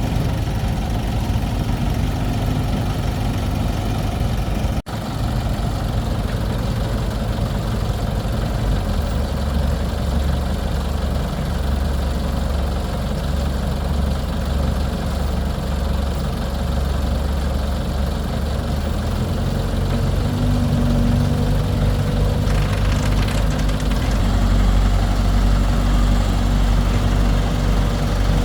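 Excavator engine running steadily at a low hum, with a brief dropout about five seconds in; its note gets heavier about nine seconds in and shifts again near twenty seconds.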